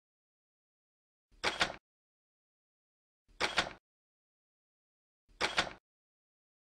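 The same short sound effect, about half a second long with a few sharp clicks in it, played three times two seconds apart, with dead silence between.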